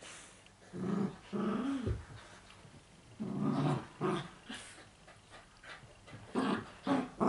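Young labradoodles play-fighting, with several short bursts of play growling.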